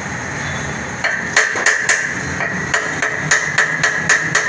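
Hammer striking metal in a quick, slightly irregular series of sharp ringing taps, about three or four a second, starting about a second in.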